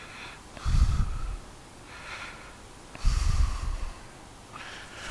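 A man breathing heavily into a close microphone: two loud exhalations with a low rumble of breath on the mic, about a second in and about three seconds in. Faint scratches of writing on the board come in between.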